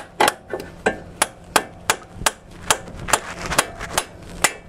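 Hammer blows on the threaded end of a CV axle, struck through the old castle nut, about three a second with a brief ring after each. They drive the axle's inner CV joint home into the transmission until it seats.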